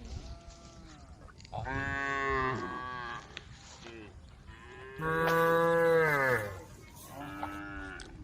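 Cattle mooing to the herd: four long calls, each dropping in pitch at its end, the two loudest starting about a second and a half in and about five seconds in.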